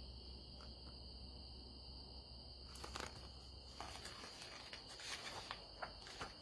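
Quiet background: a faint, steady high-pitched tone with a low hum that stops about four seconds in, and a few soft clicks.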